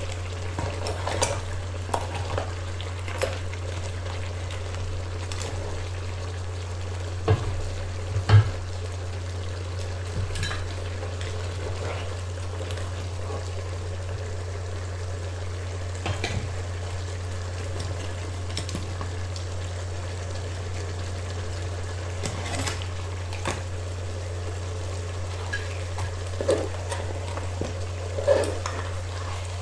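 Metal tongs and a ladle clinking and scraping in a wok as crab pieces are lifted out of simmering sauce into a bowl, with scattered knocks, the loudest around seven to eight seconds in and again near the end. A steady low hum runs underneath.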